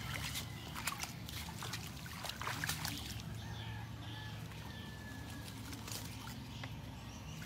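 Crackling rustles and light splashes of a fishing scoop net and hands working through wet grass, dead palm fronds and shallow water, busiest in the first three seconds, then a steadier low background hum.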